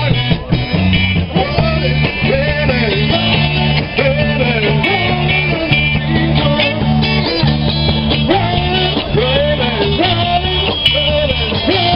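Live rock band playing: guitar and bass notes shifting in a steady rhythm under a singing voice.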